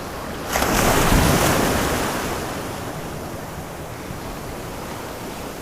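A surf wave breaking and washing in. The rush swells about half a second in and fades slowly into the steady hiss of the surf, with some wind on the microphone.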